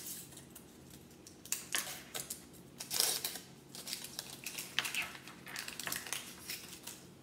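A plastic laptop power adapter and its cable being unwrapped and handled: an irregular run of rustles and light clicks, loudest about three seconds in.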